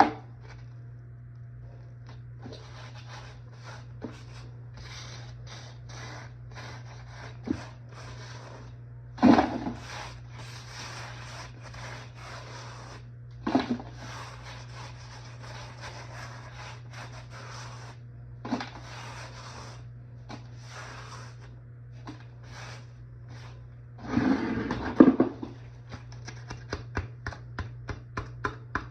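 Repeated scraping and rubbing in short strokes, with a few louder knocks and a quick run of small clicks near the end, over a steady low hum.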